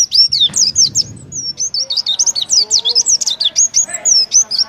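Oriental white-eye (pleci) singing a fast, unbroken run of high, sharply sweeping notes, the rapid 'tembakan' burst of song that songbird contest judges prize.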